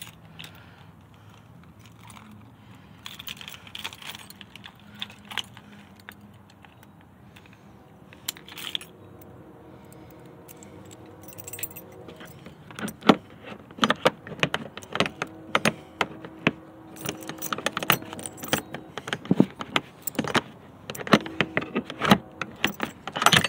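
Metallic clinking and rattling of handled metal objects, sparse and light at first, then dense and louder from about halfway.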